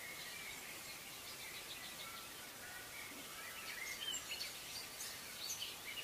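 Faint outdoor ambience: a steady hiss with scattered bird chirps, which come more often in the second half.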